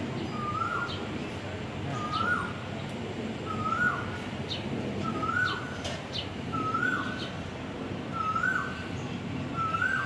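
A bird calling over and over, one short whistled note repeated about every second and a quarter, with fainter high chirps from other birds behind it.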